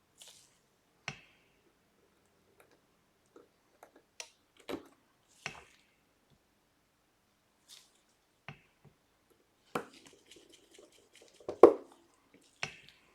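Scattered small clicks and taps of a precision screwdriver and tweezers working tiny screws back into an opened iPhone 12. A run of faint quick ticks comes about ten seconds in, followed by the loudest tap.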